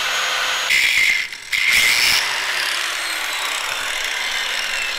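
Handheld grinder grinding down the head of a steel bolt clamped in a bench vise: a steady high hiss, louder for about a second near the start with a short break as the disc lifts off, then running on evenly until it stops.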